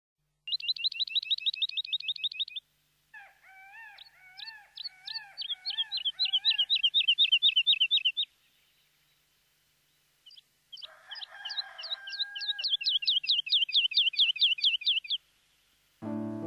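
Birdsong: three bouts of fast trilled chirping, about ten high notes a second, with a lower-pitched second bird calling along during the second and third bouts. Music comes in at the very end.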